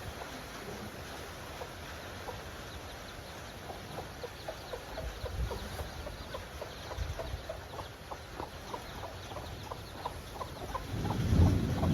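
Chickens clucking, a run of short repeated calls over quiet farmyard background, with a louder low rumbling noise building near the end.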